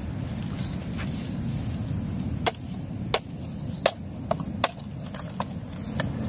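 About eight irregular sharp knocks and taps while a support for a cooking pot is rigged over a campfire, heard over a steady low rumble.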